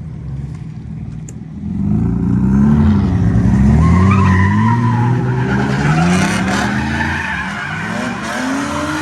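A car drifting: its engine revs up and down over and over, getting loud about two seconds in, while the tyres squeal.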